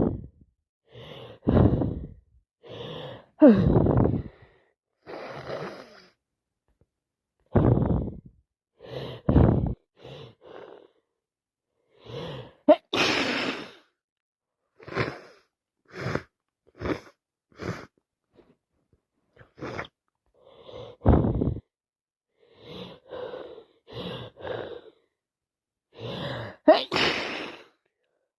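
A person with a heavy head cold sneezing over and over. Gasping build-up breaths come between the sneezes, making a long series of short, separate outbursts.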